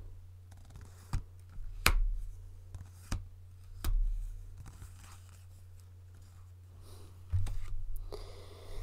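Tarot cards being handled and shuffled: about five sharp snaps or taps spread through, with soft rustling of the deck near the end, over a steady low hum.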